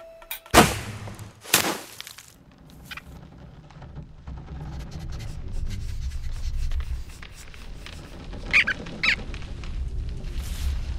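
Cartoon sound effects: two sharp noisy hits about a second apart, then a low rumble that slowly builds, with two short squeaks near the end.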